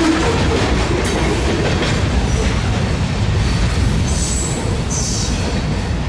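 Rumble of a loaded freight train's wheels on the rails slowly fading as the train moves away, with a few brief high wheel squeals about four to five seconds in.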